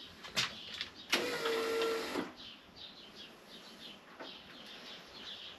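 The 1998 BMW K1100LT's electric fuel pump priming as the ignition is switched on: a click, then a steady whine about a second long while it builds fuel pressure. Faint high chirps follow, about three a second.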